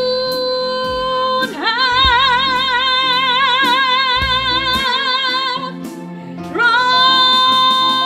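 A high voice singing long, drawn-out notes with strong vibrato over musical accompaniment. The first note slides up into a higher one after about a second and a half, and after a short break near six seconds a new held note begins.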